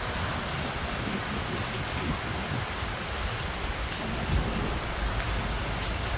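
Heavy rain pouring down steadily in strong wind, with an uneven low rumble of the gusts.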